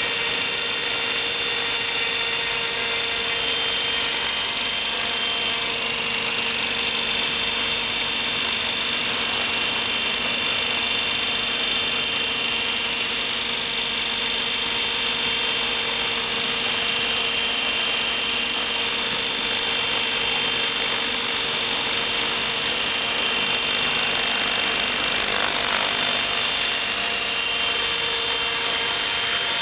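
Thunder Tiger Raptor E720 electric RC helicopter hovering: a steady whine from the motor and drive gears over the rush of the rotor blades, holding level throughout.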